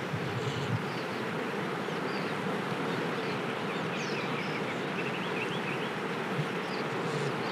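Two North American porcupines trading faint, short high squeaks, with a quick run of them about halfway through, over a steady buzzing hiss.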